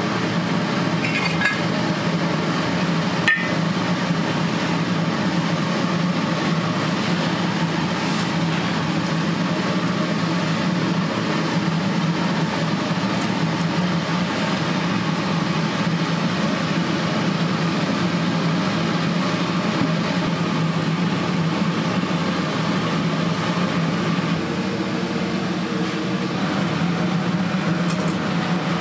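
Kitchen noise in a grilled-fish restaurant: a steady low mechanical hum over a constant hiss, with a few light clinks of dishes or metal and one sharp knock about three seconds in.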